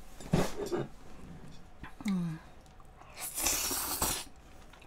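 Strands of raw marinated beef (yukhoe) being sucked off chopsticks into the mouth in a hissing slurp that lasts about a second, near the end. A brief hummed 'mm' comes about two seconds in.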